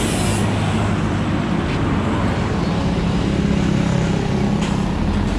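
Steady rumble of motor vehicle engines and road traffic, with a low engine hum.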